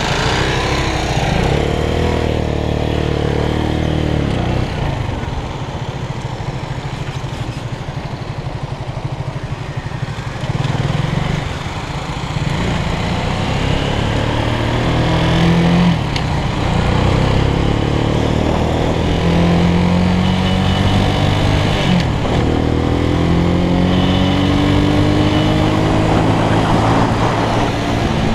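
RKS K-Light 202 motorcycle engine pulling away and accelerating through the gears. Its pitch rises in each gear and drops at each shift, several times over.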